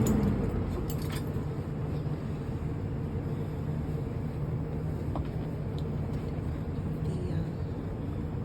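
Thor ACE motorhome engine just started, briefly higher at start-up and then idling steadily with a low hum.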